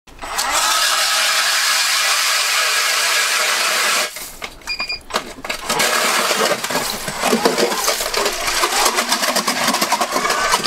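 Electric ice auger drilling through lake ice: a steady, loud grinding whir that drops off about four seconds in, then starts again with rapid crackling as the bit cuts down.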